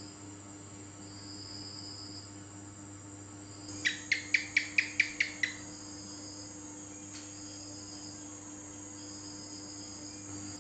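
House gecko (cicak) calling: a quick run of about eight sharp chirps over a second and a half, a few seconds in. Behind it, insects trill in short repeated phrases.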